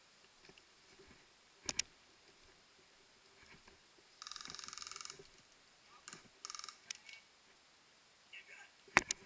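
Airsoft guns firing: two sharp pops, then a rapid full-auto burst of about a second, a shorter burst, and two more sharp pops near the end.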